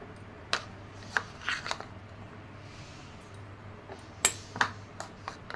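Steel spoon scooping chopped onion out of a plastic bowl and into a steel bowl: sharp clicks and short scrapes of the spoon against the bowls, in two bunches about a second in and about four seconds in, over a steady low hum.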